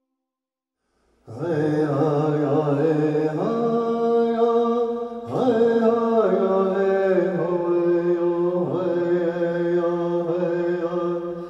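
Silence, then, a little over a second in, chanted singing in long held notes that slide from one pitch to the next.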